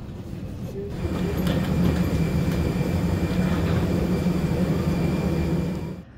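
Steady low rumble of a vehicle in motion, with scattered clicks and rattles. It gets louder about a second in and cuts off abruptly near the end.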